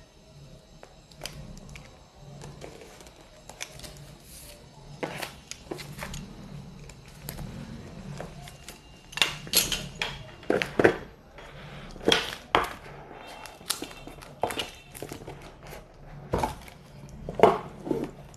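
Hands tearing and peeling clear plastic shrink wrap off a smartphone's cardboard retail box, crinkling with sharp crackles and snaps. The snaps come loudest in a cluster about halfway through and again near the end, as the box is handled and opened.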